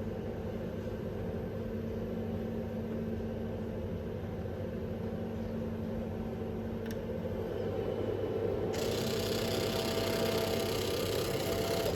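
Steady low hum of a refrigerated drinks vending machine running, with a louder rushing hiss joining about nine seconds in.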